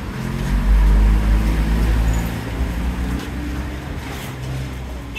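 A motor vehicle's engine running with a low, steady rumble. It is loudest about a second in, then fades.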